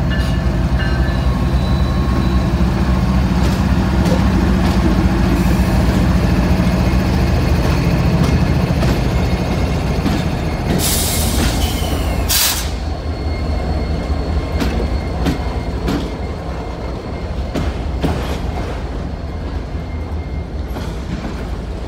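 Kansas City Southern diesel freight locomotives rumbling past close by, their engine drone easing off about halfway through as the autorack cars follow. The cars roll by with wheels clicking over the rail joints, and there are two short hisses about halfway through.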